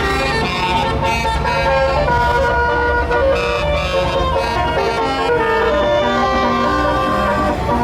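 A tour bus's multi-note basuri (telolet) horn playing a melody of held tones that step from note to note, over a steady low rumble.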